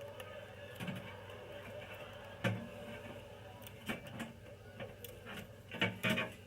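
Light clicks and knocks of small tools and parts being handled on a work surface, about five over several seconds with the loudest pair near the end, over a steady low hum.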